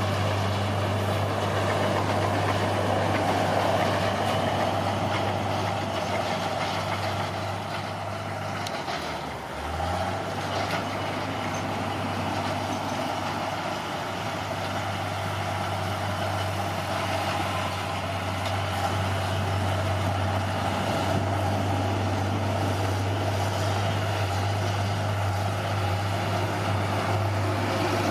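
Bulldozer's diesel engine running steadily under load. About nine seconds in the engine note sags, then climbs back up and carries on.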